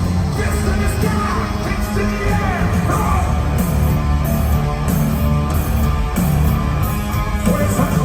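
Live hard rock band playing loud and steady, with heavy low-end guitar and bass and voices singing or yelling over it.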